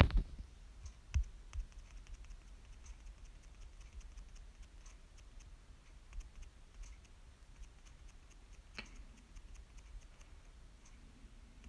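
Faint, scattered clicks from operating a computer, with a few sharper clicks at the start, about a second in and near nine seconds, over a low steady hum.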